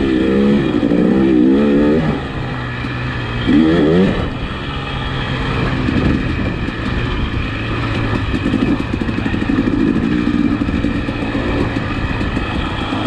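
2021 KTM 300 XC-W single-cylinder two-stroke dirt bike engine under way. It revs up and down in quick sweeps near the start and again about four seconds in, then runs at a steadier throttle.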